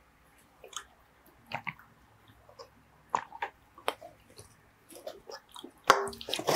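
A person swallowing gulps of a canned drink, heard as a string of short, wet clicks and gulps close to the microphone. Near the end there is a louder sound as the aluminium can comes down onto the table.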